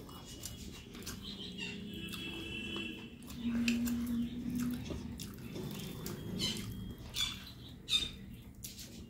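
Close-up eating sounds: chewing with the mouth closed while fingers break up a leaf-wrapped steamed fish and mix it with rice on a plate, with a brief low hum about three and a half seconds in and a few sharp clicks near the end, the loudest about eight seconds in.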